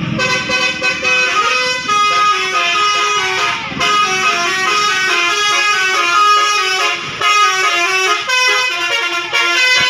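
A bus's Basuri telolet multi-tone air horn playing a quick melody, its notes stepping up and down several times a second. There are two short breaks, about a third and about two thirds of the way through.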